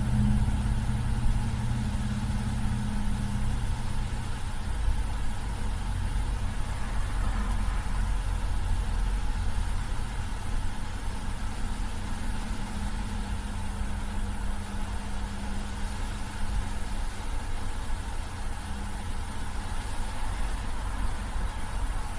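Car running steadily: a constant low rumble with a faint engine hum that fades a few seconds in and returns later.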